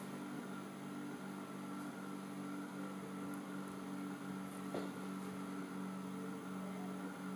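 Small precision spinning top running on a magnetic base: a steady, many-toned hum with no let-up, and one light tick nearly five seconds in.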